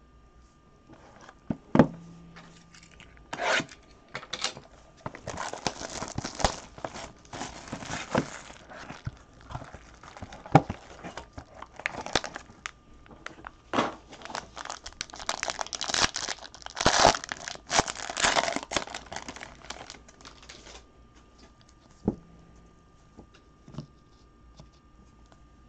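A trading-card pack wrapper being torn and crinkled open by gloved hands, with a few sharp knocks along the way. Near the end the rustling stops, leaving only light ticks of cards being handled.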